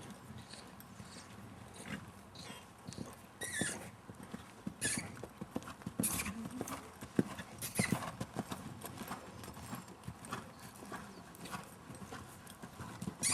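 Hooves of a ridden horse striking the arena ground, a string of irregular clops with a few sharper clicks among them.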